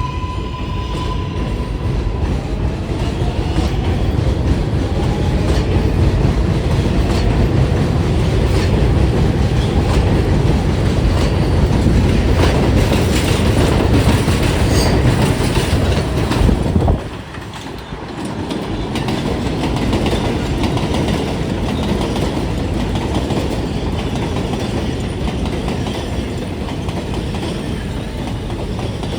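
R188 7 subway train running through an elevated station: a loud, steady rumble with wheels clacking over the rail joints. The noise drops off abruptly about 17 seconds in, then builds again.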